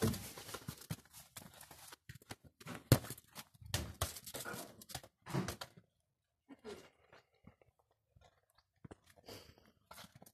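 Irregular taps, scuffs and knocks as a small dog chases and nudges a ball around a stone-paved patio, with one sharp knock about three seconds in; the sounds thin out in the second half.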